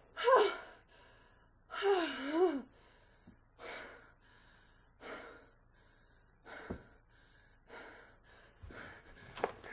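A woman gasping aloud twice, her voice sliding up and down, then breathing hard in a string of heavy breaths.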